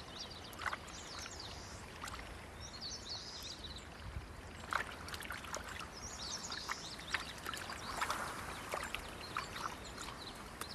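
Faint marsh sounds of red-crowned cranes foraging in shallow water: soft splashes and small clicks as they wade and peck, over a quiet background with faint high chirps coming and going.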